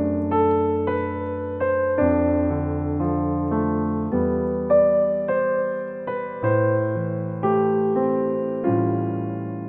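Background music on piano: a slow melody of struck notes and chords, each ringing and fading, about one a second.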